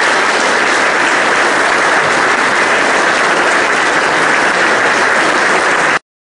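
Audience applauding loudly and steadily at the end of a lecture. The applause cuts off suddenly near the end.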